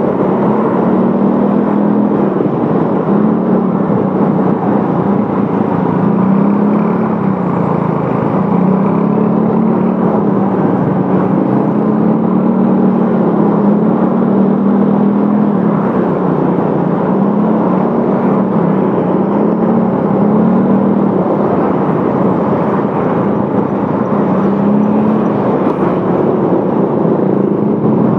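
Motorcycle engine running while riding, its pitch rising and falling over and over with the throttle, over a steady rush of road and wind noise.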